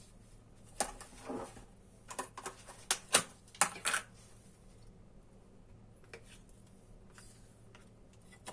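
Light kitchen handling sounds: a few short clicks and knocks of utensils and dishes over the first four seconds, then only faint room tone.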